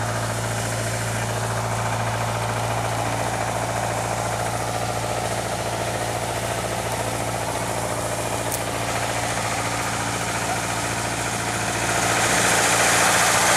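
Vintage Caterpillar engine unit, a diesel with a gasoline pony starting engine, running steadily at idle. Near the end a rushing hiss joins in and the sound grows louder.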